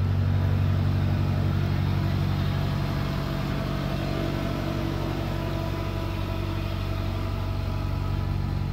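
A motor running steadily at an even speed, with a low constant hum and a few faint steady tones above it.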